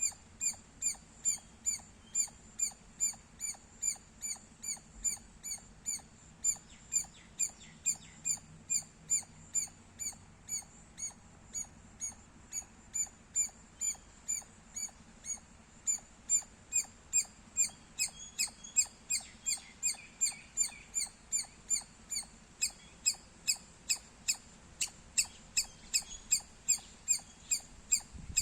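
Squirrel chirping: a long, steady series of short, high-pitched chirps, about two to three a second, coming a little faster in the second half.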